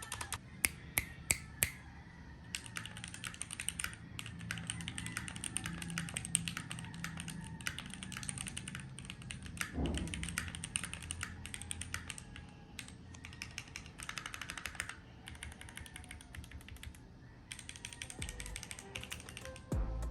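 Typing on a Keychron Q1 75% gasket-mounted mechanical keyboard: quick runs of key clicks with short pauses, and one deeper knock about halfway through.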